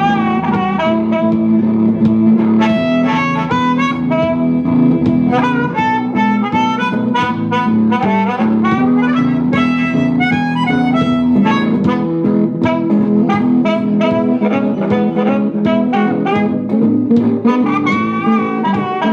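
Blues harmonica taking an instrumental solo with held, bending notes, over a steadily strummed guitar.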